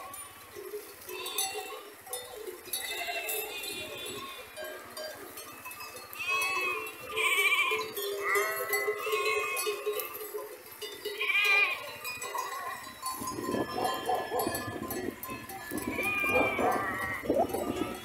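A flock of sheep bleating, many calls overlapping. Several louder, deeper bleats come in the last few seconds.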